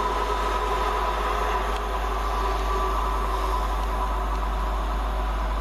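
Two Class 350 Desiro electric multiple units at the platform giving a steady electric whine that fades away near the end, over a low wind rumble on the microphone.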